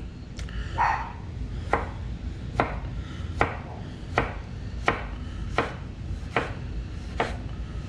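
Kitchen knife chopping tomato on a cutting board, with evenly spaced strokes a little faster than one a second.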